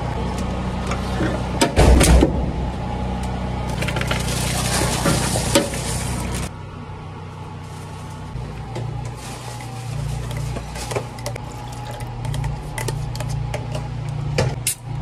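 Drink-shop counter sounds: a steady machine hum with handling knocks and clatter, a loud knock about two seconds in and a hiss of about a second and a half near the middle. The hum then drops abruptly, leaving light clicks and clinks as a drink is made.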